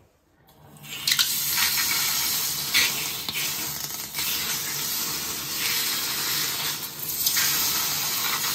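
Tap water running over the hot heating head of a PPR pipe fusion welder and splashing into a ceramic wash basin, cooling the tool after use. The water starts about a second in and then runs steadily.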